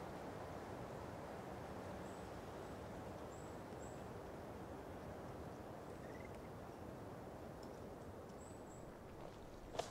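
Quiet outdoor ambience: a faint, steady low rush of background noise with a few brief, faint high-pitched chirps scattered through it.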